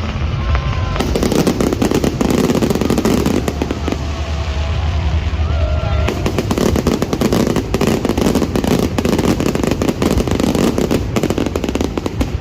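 Fireworks display bursting and crackling without a break: dense rapid crackles over a constant low rumble of booms.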